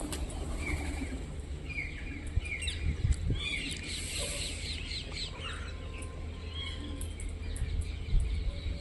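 Pet parrots chirping in a quick run of short calls, busiest in the first half, over a steady low hum.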